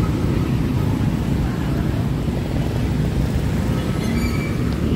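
Steady low rumble of busy city street ambience, dominated by road traffic.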